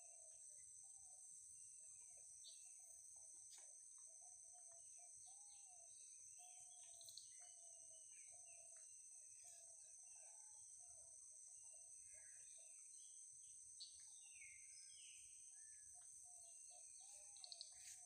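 Faint natural ambience: a steady high insect drone, with birds calling over it in a long run of short, low repeated notes and scattered higher chirps.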